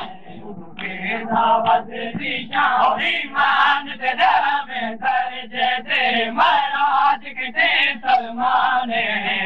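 Male voices chanting a noha, a Shia lament, in long drawn-out sung phrases.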